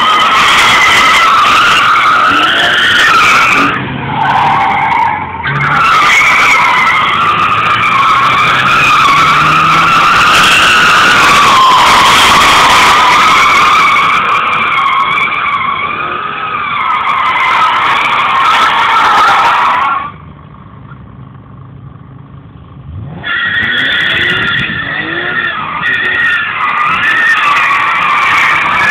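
BMW E46 M3 drifting in circles, its rear tyres squealing loudly and continuously in a wavering pitch. The squeal breaks off for about three seconds near two thirds of the way through, then starts again.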